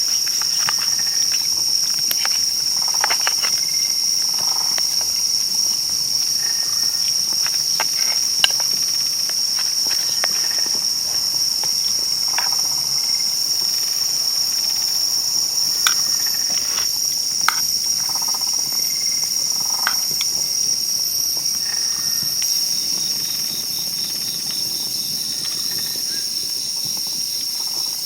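Insects, crickets and the like, chirring in a steady high-pitched chorus, with scattered sharp crackles and pops from a wood campfire. Near the end another insect adds a fast pulsing trill.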